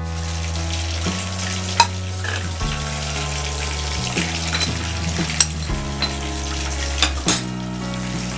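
Chicken pieces frying in hot oil, a steady sizzle, with a few sharp clinks of a spoon against a bowl and a low hum underneath.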